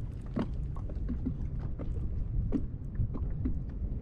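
Boat on the water: a steady low rumble with irregular small knocks and splashes.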